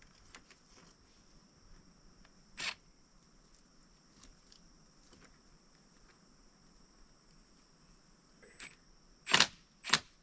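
A few sharp clicks over a faint steady high hiss: one about two and a half seconds in, then two loud ones half a second apart near the end.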